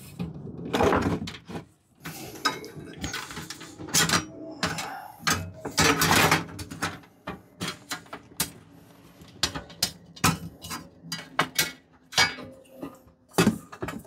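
Casing and cover panel of a Vevor 8kw diesel heater being worked loose and lifted off by hand: a run of irregular clicks and knocks, with longer scraping rustles about a second in and again around six seconds.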